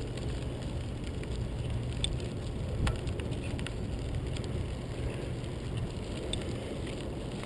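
Steady low rumble of wind buffeting the microphone on a moving bicycle, with a few light clicks and rattles from the bike.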